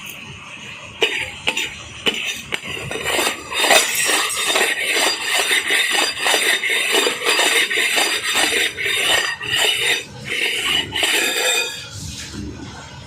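Dishes and metal utensils clattering and clinking against each other, in a quick, busy run of knocks that starts about a second in and stops about a second before the end.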